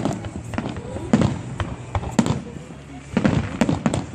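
Fireworks salute shells bursting overhead: an irregular rapid series of sharp bangs, each followed by a short ringing echo.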